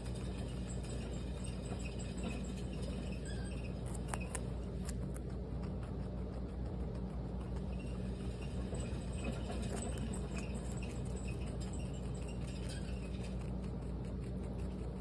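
Guinea pig chewing celery: a quick, continuous run of small crunches and clicks from its teeth on the crisp stalk, a few sharper snaps about four to five seconds in, over a steady low hum.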